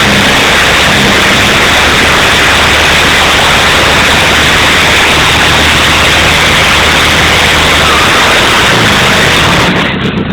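A racing lawnmower's engine is run hard during a burnout, so loud that it overloads the phone's microphone into a harsh, distorted noise. The sound drops off sharply right at the end.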